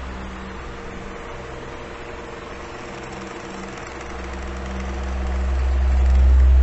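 Electric fan running: a steady low motor hum with the rush of moving air. It grows quieter early on and swells back to full strength near the end.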